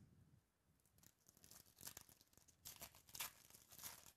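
Foil wrapper of a trading-card pack being torn open and crinkled by hand, a series of crackly rips over about three seconds.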